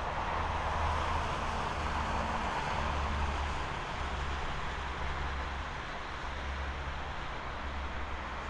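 Steady outdoor background rush of distant road traffic, with a low hum underneath.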